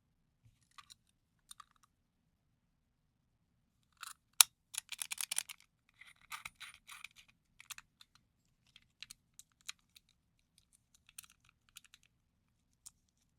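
Light metallic clicks and small rattles from a dial combination padlock being handled and worked, with one sharp click about four seconds in followed by a second of rattling.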